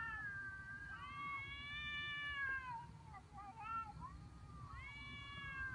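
Two cats in an aggressive standoff, yowling at each other: long, drawn-out, wavering yowls of a second or two each that rise and then sag in pitch. About three seconds in there is a cluster of shorter, broken cries, and another long yowl starts near the end.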